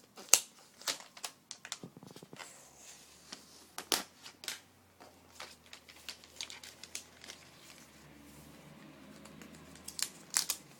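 Thin plastic protective wrap being peeled off a new iPad and crinkled in the hands: irregular sharp crackles, busiest at the start and again near the end, with a quieter stretch between.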